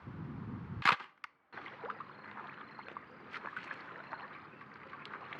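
Shutter of a fixed-setting plastic snapshot film camera firing with one sharp click about a second in, followed by faint scattered small clicks.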